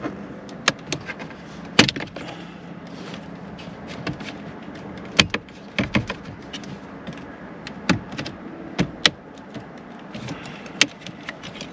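Irregular plastic clicks, taps and snaps from interior trim pieces being pried loose and handled with a trim removal tool, over the steady low hum of the car idling.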